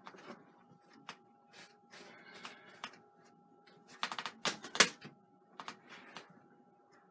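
Clicks and clatters of painting tools being handled, with a quick burst of sharp clacks about four to five seconds in. A faint steady tone runs underneath.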